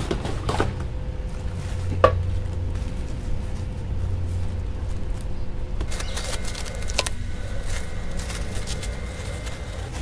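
Plastic wrap crinkling, with a few sharp clicks and light knocks, as a shrink-wrapped fretsaw in its card sleeve is handled. One click comes about two seconds in and a cluster comes past the middle, over a steady low hum.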